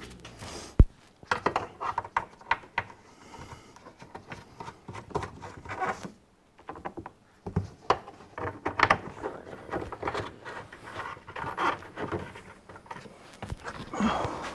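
Irregular clicks, light knocks and rustling from the plastic tail light housing of a Pontiac Firebird and the trunk trim as it is pushed and fitted into the body, with one sharper knock about a second in.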